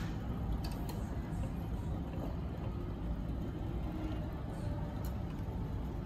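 Steady low rumble of dining-room background noise, with a few faint clicks.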